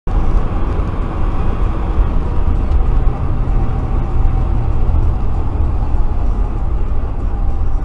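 Steady low rumble of road and engine noise inside a car's cabin while driving at highway speed.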